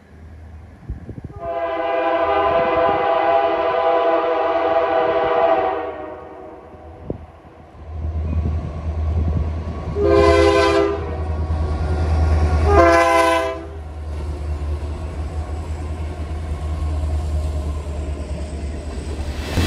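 Train air horn sounding one long blast, then two short blasts, over the low rumble of an approaching locomotive that grows from about halfway through.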